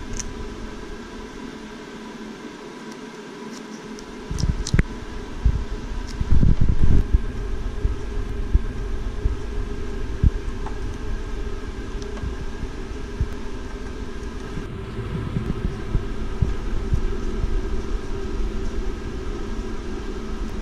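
Steady mechanical hum in a workshop, with low knocks and rustling as hands work painter's tape on a car spoiler. The loudest knocks come about four to seven seconds in.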